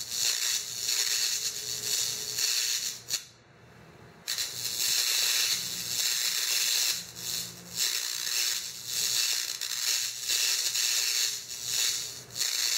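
High-voltage spark from an ignition transformer jumping between the tip of a 6013 electrode and a steel plate: a steady hiss with a faint crackle and low hum, used to practise holding a constant arc length. It cuts out for about a second a little after three seconds in, and dips briefly several more times, where the gap is lost.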